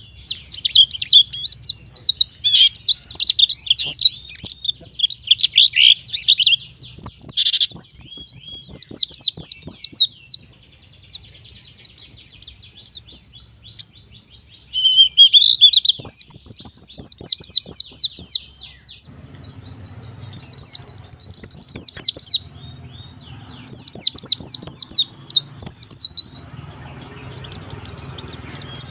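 White-eye (pleci) singing its fast, high-pitched chattering song in rapid bursts of chirps, in several bouts separated by short pauses.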